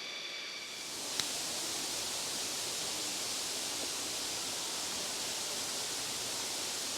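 Insects, taken for crickets, keep up a steady high drone until about a second in. After a click, the steady rushing hiss of waterfall water takes over.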